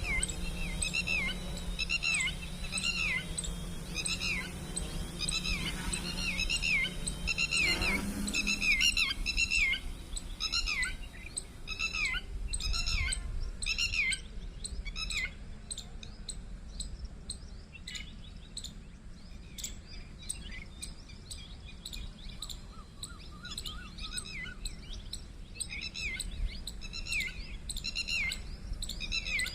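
A bird calling over and over, short falling chirps at about two a second that thin out after about halfway and pick up again near the end. A low steady hum sits under them and stops about eight seconds in.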